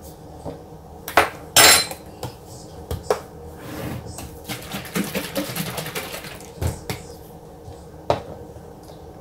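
A metal spoon clinking and scraping in a plastic cup as coffee is stirred and mixed, among sharp knocks from a canister and a bottle cap being handled. A louder short scrape comes about one and a half seconds in, and a run of quick small clatter follows in the middle.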